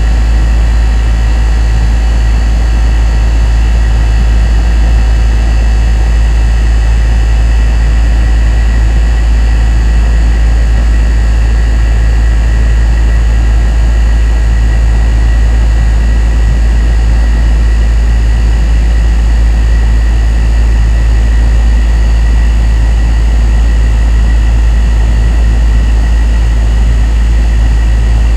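Air conditioner running steadily: a deep, even hum with a rushing of air over it and a few faint steady whining tones higher up.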